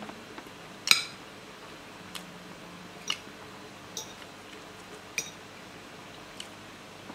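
Stainless steel spoon and fork clinking against a ceramic plate while scooping up rice and fish: about six separate clinks a second or so apart, the loudest about a second in.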